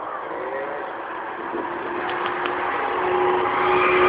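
Car engine running at a steady pitch, growing louder as the vehicle draws near.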